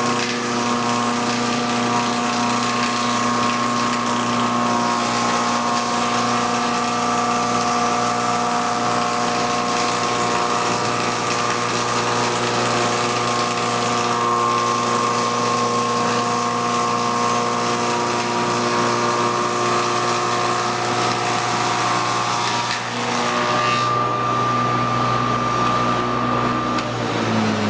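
KBM-200 log-rounding machine running steadily: a constant motor hum with several steady tones over the noise of the cutter working the wood. The sound changes about 23 seconds in, and at the very end the pitch starts to fall as the machine winds down.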